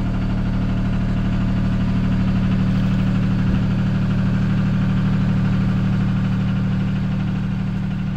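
Boat engine idling steadily, a low-pitched hum with an even pulse.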